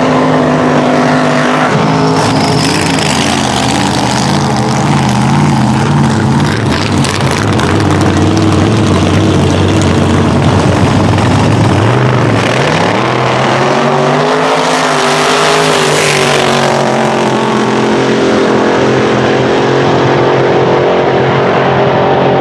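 V8 drag racing engines: a rail dragster's engine runs through a burnout, then the dragster and a muscle car run on the start line and launch about twelve seconds in, the engine note rising sharply and holding high as they pull away down the strip.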